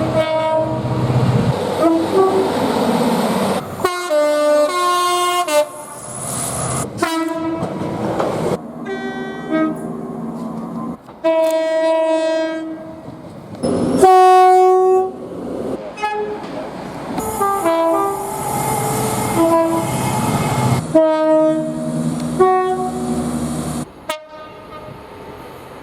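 A rapid succession of different train horns, each clip a steady, sustained horn blast lasting from under a second to a few seconds, cut abruptly one into the next. The loudest blast comes about halfway through.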